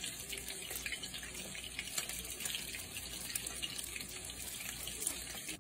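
Breaded bass fillets sizzling and crackling steadily in hot oil in a frying pan, nearly done.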